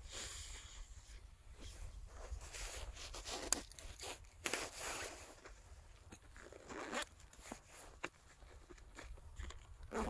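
Rustling and scraping of a nylon backpack's straps and fabric as a wooden-handled hatchet is worked out from under the side straps, with a sharp click about three and a half seconds in.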